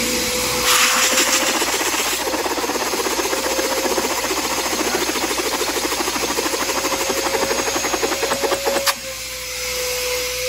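Wooden air engine, built after Matthias Wandel's plans, driven by a vacuum cleaner and clattering in a fast, even rhythm over the vacuum's steady whine. The clatter stops with a sharp click near the end while the vacuum keeps running.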